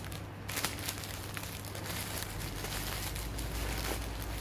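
Black plastic delivery bag crinkling and rustling as it is handled and pulled open by hand, with irregular small crackles.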